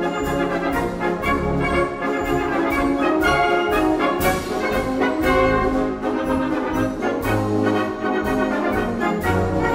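A wind band playing a concert march, brass to the fore over a steady beat from the percussion.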